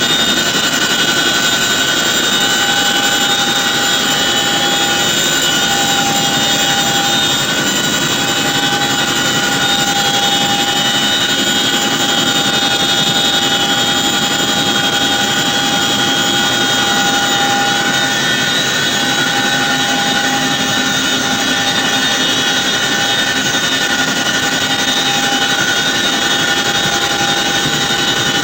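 Helicopter in flight heard from inside the cabin: a steady, loud rush of engine and rotor noise with several high steady tones over it.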